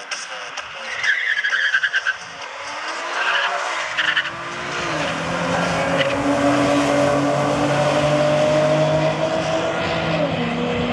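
A 1986 Dodge Omni and an Infiniti launching from the line on a drag strip. Tyres squeal briefly about a second in, then the engines rev hard, rising in pitch. The pitch drops at a gear shift about five seconds in, climbs again and drops at another shift near the end.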